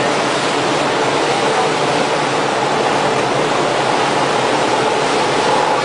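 Steady rushing of sea water churning along a moving ship's hull and around a swamped rescue boat dragged alongside, with a faint steady hum underneath.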